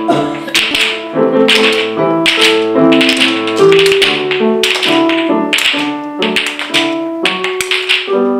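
Lively folk-style dance music: a melody of held notes with a sharp tap or clap on every beat, about two a second.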